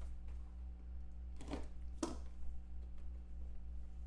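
A small cardboard trading-card box handled and opened by hand: short knocks and scrapes of cardboard, two clearest about a second and a half and two seconds in, over a steady electrical hum.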